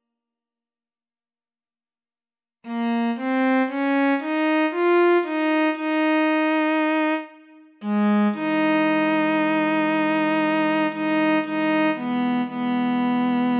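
Choral part-learning track playing the second tenor line on a single string-like instrument voice: after about two and a half seconds of silence, a short run of notes steps upward, then after a brief break near the eight-second mark it moves on to long held notes.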